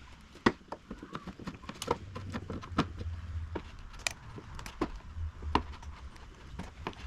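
Irregular clicks and knocks of hand work on a motorcycle: tools and parts being handled, the sharpest knock about half a second in, with a low rumble twice along the way.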